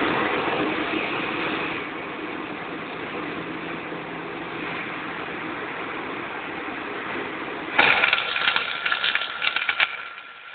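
A steady machine hum, then about eight seconds in a flux-cored wire welding arc strikes and crackles and spits in quick irregular bursts for a couple of seconds.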